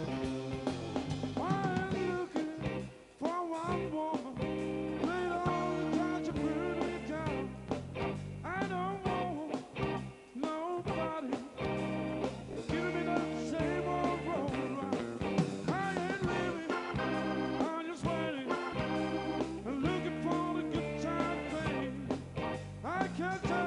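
Live blues-rock band playing: electric guitars, bass, drums and keyboards, with a lead line of notes that bend up and down over a steady bass.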